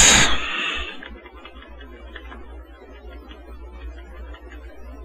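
Quiet room tone from the recording microphone: a steady low hum and faint hiss, with a few faint ticks.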